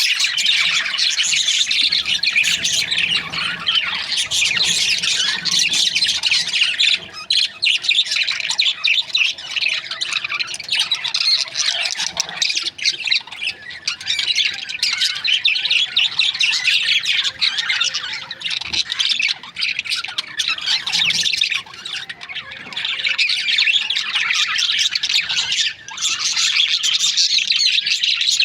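A flock of budgerigars chirping and chattering continuously, many birds calling at once in a dense, high-pitched twittering.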